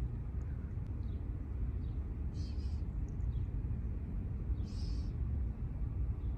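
Steady low rumble of outdoor trackside ambience. Over it, a short, high, raspy call repeats about every two and a half seconds.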